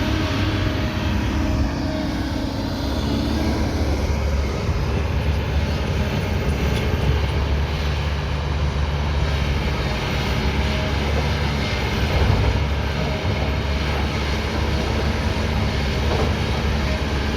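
Kobelco 220 excavator's diesel engine running steadily at working speed, with only small rises and dips in level.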